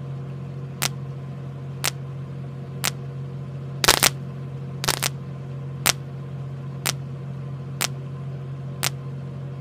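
Evenly spaced sharp ticks, about one a second, with a couple of doubled clicks near the middle, over a steady low hum, like a ticking beat in a soundtrack.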